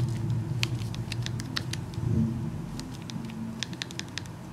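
Keys of a Texas Instruments BA II Plus Professional financial calculator being pressed: a string of quick, irregular button clicks as a number is keyed in.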